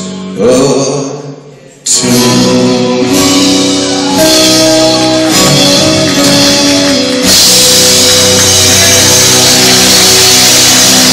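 A live band plays the end of a song. The singer's last line trails off, then about two seconds in the band hits a loud, sustained final chord. About seven seconds in, a wash of cymbals swells over it.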